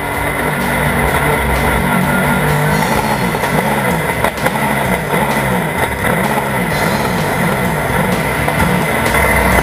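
Rock music with drums and guitar over a Porsche 911 GT3 Cup race car's engine heard from the cockpit, its pitch climbing and falling again and again as the driver works through the gears.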